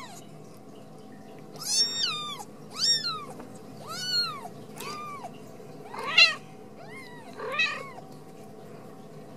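Newborn Ragdoll kitten mewing, about seven short, high-pitched cries, each rising and falling in pitch, a second or so apart, over a faint steady hum.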